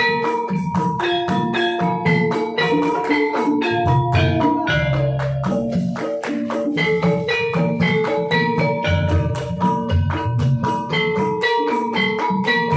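Gamelan music: bronze metallophones ring out a quick, steady run of struck notes over low drum strokes.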